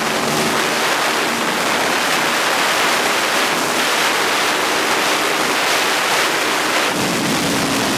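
Heavy wind rush over an onboard camera on a Ducati V-twin superbike at speed down a straight, with the engine note faint beneath it. The engine note changes near the end.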